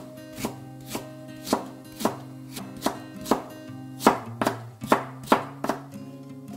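Chef's knife slicing a carrot into thin matchsticks on a plastic cutting board: crisp knocks of the blade hitting the board about twice a second, a little louder in the middle. Soft background music plays underneath.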